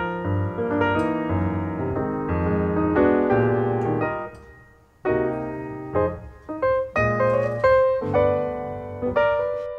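Solo piano music playing chords and a melody, with a brief pause about halfway through.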